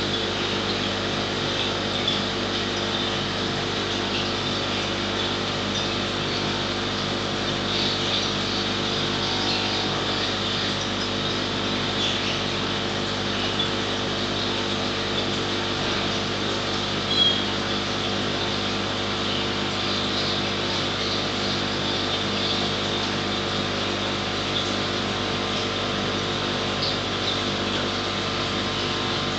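Steady low hum with several constant tones, over an even hiss with faint crackling and a single sharper tick about two-thirds of the way through.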